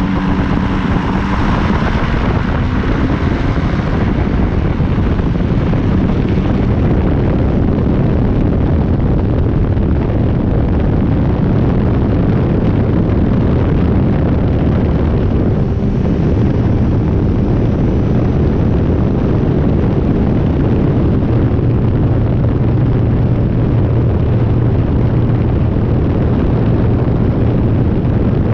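Rotax 503 two-stroke twin-cylinder engine of a Phantom X1-E ultralight running loud and steady under power, with a heavy rush of noise over it.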